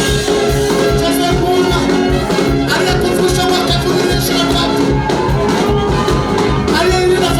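Church praise and worship music with a steady beat.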